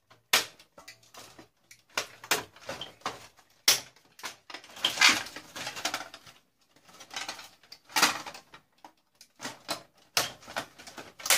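Irregular knocks and clatters of plastic and metal parts as a box-shaped section is worked loose and pulled out of an old tube TV. There is a denser run of rattling about five seconds in.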